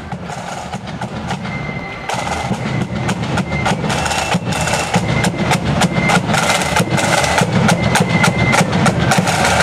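Marching band's side drums and bass drum beating a rapid, rhythmic march, growing steadily louder as the drummers come closer.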